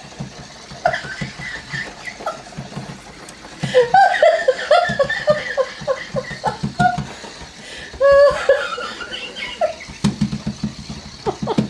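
People laughing, in several bursts with quieter spells between.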